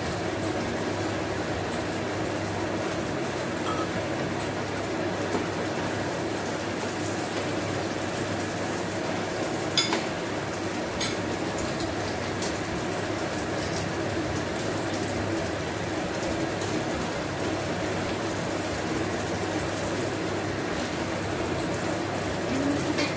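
Spiced coconut-milk sauce simmering steadily in a pan, with a sharp click about ten seconds in and a fainter one a second later.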